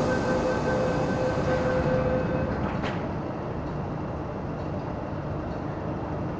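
MTR M-Train doors and platform screen doors closing: a steady two-tone door-closing warning sounds for about two and a half seconds, the doors shut with a short knock about three seconds in, and the waiting train's steady rumble carries on underneath.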